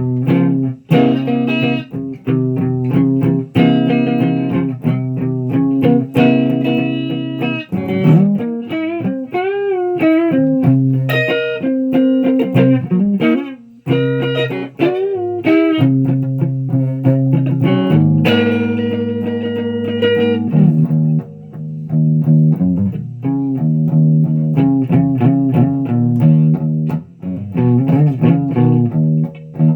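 Electric guitar played solo: quick picked notes and chords, with wavy bent notes shaken in vibrato in the middle and a few held ringing notes later on.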